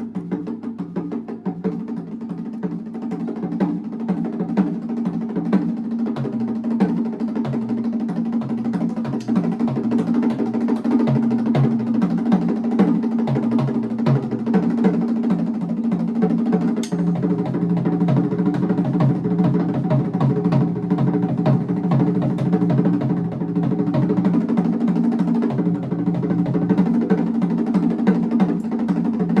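Live band music: busy drumming and percussion at a quick, steady beat over a low, repeating bass line.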